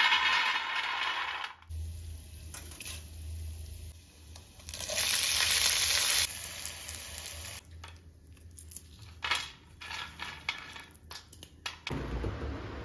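Roasted peanuts poured from a pan onto a steel plate, rattling for about a second and a half. Then lentils and green chillies fry in oil in a non-stick pan, with a loud sizzle about five seconds in and scattered clicks afterwards. Near the end a refrigerator door is opened.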